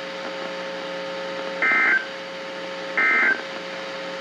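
Emergency Alert System end-of-message tones from a NOAA Weather Radio broadcast: two short bursts of SAME digital data tones, about 1.4 s apart. They sound over a steady hum from the radio.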